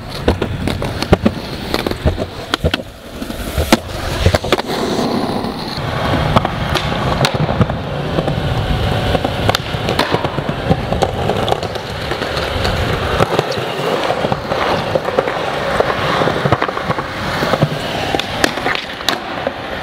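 Skateboard wheels rolling on concrete, broken by sharp clacks of the tail popping and the board landing, again and again.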